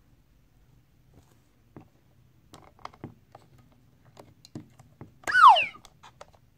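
AA batteries being pressed into a plastic toy's battery compartment: a series of light clicks and knocks against the spring contacts and casing. About five seconds in comes a loud, short squeak that falls in pitch.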